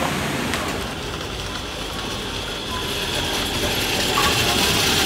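Rail transit running noise; over the last second or two a steady high whine grows louder as a SEPTA PCC streetcar draws near.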